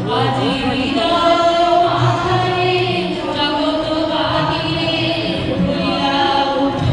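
A group of voices singing a song together, in long held notes.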